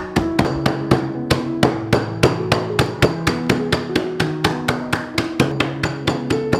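Pestle pounding Marie biscuits inside a plastic zip bag, about three dull blows a second, crushing them to crumbs. Background music plays underneath.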